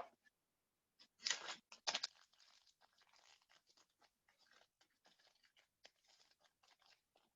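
A trading-card pack's wrapper being torn open and crinkled: two short tearing bursts a little over a second in, then faint crackling as the wrapper and cards are handled.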